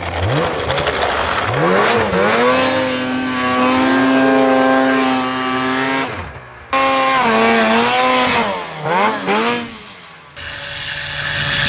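Snowmobile engine revving hard: the pitch climbs quickly in the first two seconds and holds high. It cuts off abruptly about six seconds in, and a run with revs dipping and rising follows. After a second abrupt cut near the end, a steadier, lower engine drone takes over.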